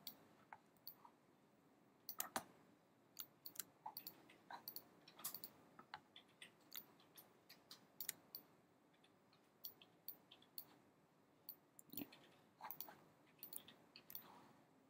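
Faint computer mouse clicks, irregular and short, some in quick pairs, over quiet room tone.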